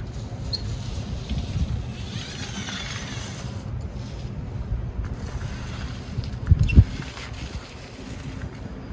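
Low, uneven rumble of wind buffeting the microphone, with a brief hiss a couple of seconds in and two sharp knocks about two-thirds of the way through.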